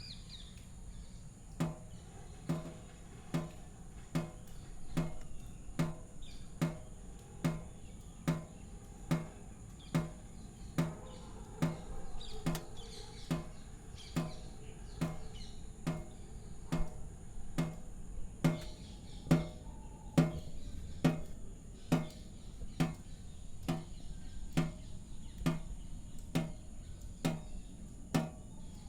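Water dripping at an even pace, a little more than one drop a second, each drop a short hollow plink.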